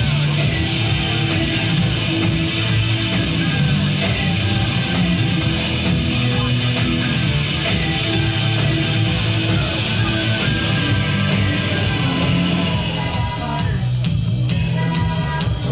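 Loud rock music with guitars, playing continuously as dance music.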